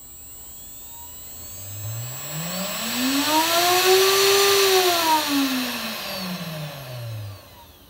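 Inventables Quiet Cut CNC router spindle spinning up with no bit: its whine climbs steadily in pitch with a rushing air noise, peaks a little after the middle, then winds back down and cuts out near the end.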